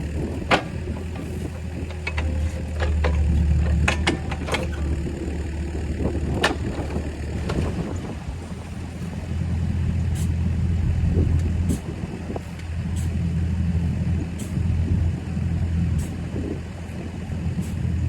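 An engine running steadily, its low drone swelling and easing a few times as under changing load. Sharp metallic clicks and knocks come through several times in the first half.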